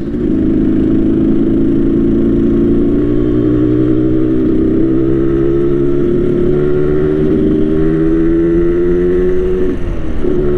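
Yamaha RX King's 135cc two-stroke single-cylinder engine, tuned in the Medan 'ngorok' style, pulling under way with its pitch climbing slowly. Near the end the revs dip briefly, then come back.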